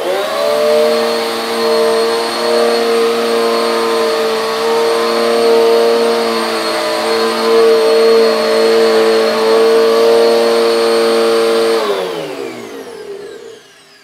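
Hoover Eco G Turbo Power bagless upright vacuum cleaner switched on and run over carpet on its short pile setting. The motor spins up at once and then runs with a steady hum of several tones and no high pitched scream. About twelve seconds in it is switched off and the motor's pitch falls as it winds down.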